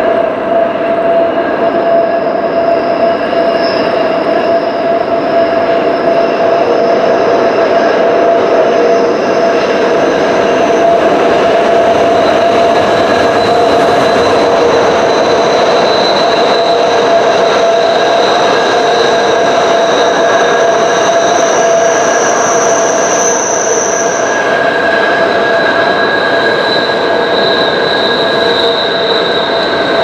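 Wheel squeal from an empty car-transporter freight train's rigid-axle wagons rounding a tight curve, their wheel flanges running up against the outer rail. A loud, continuous screech of several shrill tones at once, the highest ones fading in and out over the rumble of the passing wagons.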